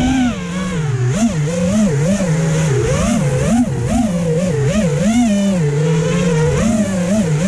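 FPV freestyle quadcopter's brushless motors and propellers whining, the pitch swinging up and down every half second or so with quick throttle punches.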